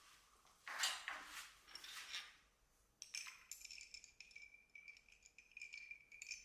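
Light clinking against a drinking glass as a cold-brew coffee drink is made, with a steady high ring of the glass from about three seconds in. A few short noisy bursts come before it, about a second in.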